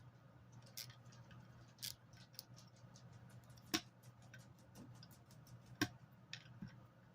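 Hand tools clicking and tapping on a washing machine motor as its fasteners are worked loose: many small ticks with a few sharper metal knocks about two seconds apart, over a low steady hum.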